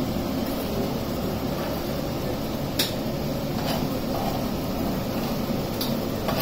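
Steady mechanical hum of running kitchen equipment, with a few light clicks of a metal spoon against utensils.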